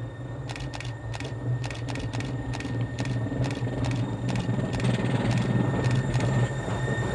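Bavarian Zugspitze Railway electric railcar coming up close at low speed: a steady low hum growing louder, with a run of sharp clicks, two or three a second.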